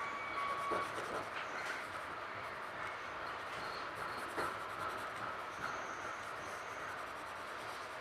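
Steady running noise of a Metra Rock Island Line commuter train heard inside the passenger car, with a pencil scratching on sketchbook paper and a few light clicks. A short high tone sounds about half a second in.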